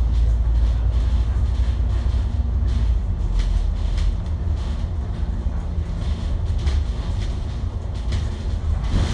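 Bus engine and road rumble heard from inside the moving bus's cabin: a steady deep drone with a few short rattles, the deepest rumble easing about four seconds in.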